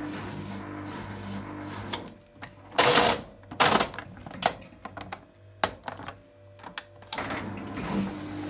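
Beko BKY 2317 B washing machine running with a steady hum that cuts off after a click about two seconds in. Loud rubbing noises and a run of sharp clicks follow as the programme dial is turned, and the machine's hum starts up again near the end.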